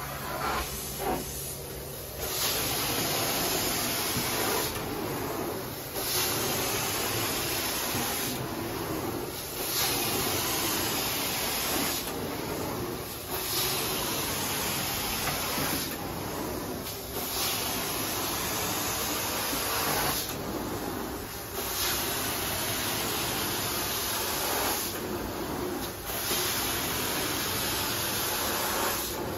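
Carpet extraction wand drawn over the carpet: a loud, steady hiss of spray and suction. It breaks off for about a second every four seconds or so, between strokes.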